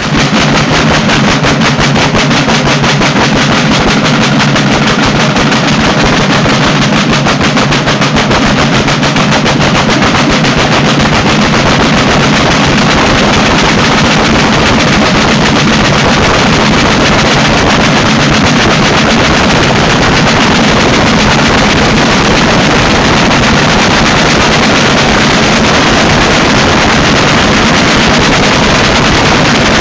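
A group of Sicilian festival drums (tamburi) beaten with sticks in a loud, fast, unbroken rolling rhythm, the strokes running together into a steady rattle.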